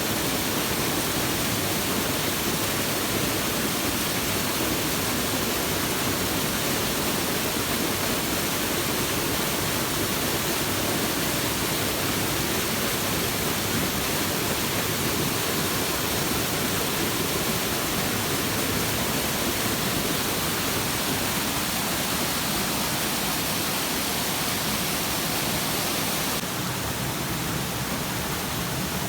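Waterfall: water falling and splashing in a steady, unbroken rush. It turns slightly quieter about three seconds before the end.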